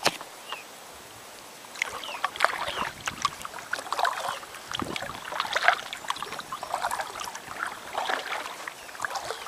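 Kayak paddle strokes: the paddle blades dipping and pulling through the water with splashing and dripping, starting about two seconds in and repeating irregularly.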